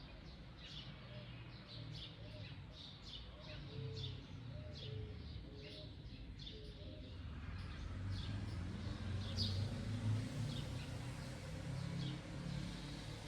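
Wild birds calling around a mango tree: short high chirps repeating one or two a second, with a row of soft low arched notes, like a cooing bird, during the first half. A low rumble runs underneath and grows louder, with a hiss, from about halfway through.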